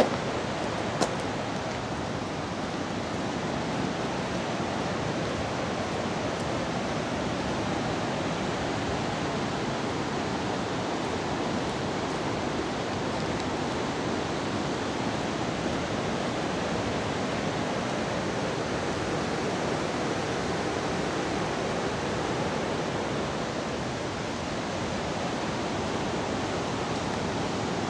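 Cumberland Falls, a large waterfall on the Cumberland River, making a steady, even rushing noise.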